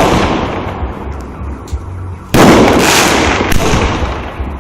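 Fireworks bursting: a loud bang about two and a half seconds in with a crackling tail that fades over about two seconds, after the fading tail of an earlier burst.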